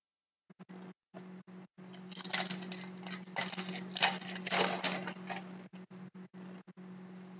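Foil wrapper of an Upper Deck hockey card pack crinkling as it is handled and opened, loudest in the middle few seconds. Under it runs a low electrical hum that cuts in and out.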